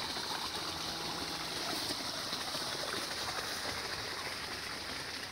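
Steady rush of irrigation water running from a pumped supply into the field.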